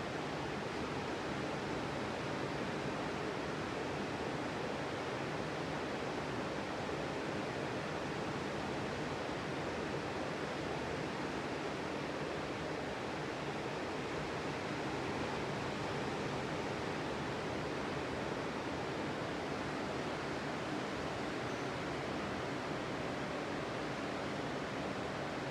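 Sea surf on a beach: a steady, even wash of breaking waves, with no single wave standing out.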